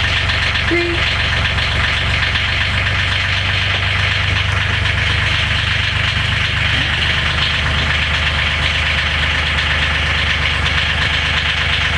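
The boat's engine idling steadily, heard from inside the cabin. It is idling unloaded through a warm-up delay, before the alternator charging load comes on.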